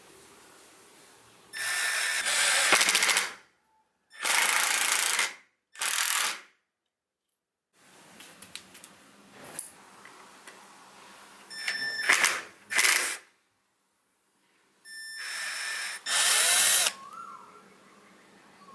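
Milwaukee M12 2462-20 1/4-inch hex impact driver run in six short bursts of up to about two seconds each. The first and last bursts get louder partway through. Lighter clicks and handling noises come between the bursts.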